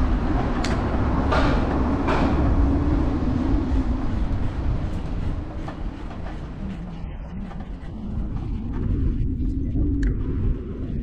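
Wind rumble on the microphone of a camera riding on a moving bicycle, with tyre and road noise underneath. Three sharp rattles come in the first couple of seconds.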